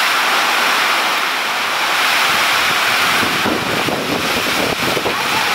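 Heavy rain falling steadily in a downpour. About halfway through, wind starts buffeting the microphone in irregular gusts.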